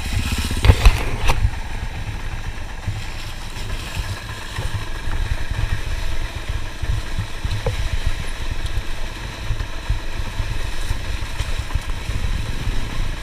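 Enduro dirt bike engine running as the bike rolls down a rough forest trail, heard from on the bike, with rattling from the bike over the bumps. A couple of sharp knocks come about a second in.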